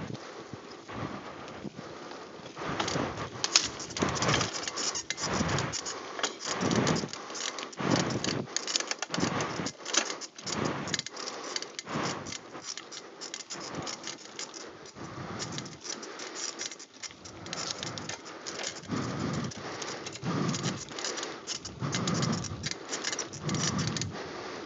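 Mountain bike riding fast down a dirt singletrack: a steady clatter and rattle of the bike over bumps and roots, with tyre noise and repeated gusts of wind buffeting the microphone.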